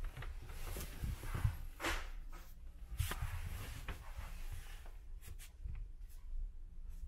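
Steady low hum of a ferry's engines heard inside a small sleeping berth, with rustling and handling noises, then a few sharp clicks about five seconds in.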